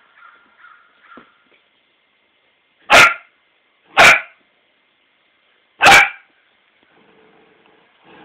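Australian Shepherd puppy barking at its own reflection in a mirror: three loud barks, the first two about a second apart and the third after a two-second gap.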